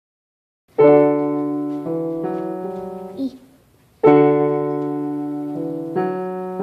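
Piano playing slow block chords, each struck and held for a second or more and then changed, with a short break just past the middle.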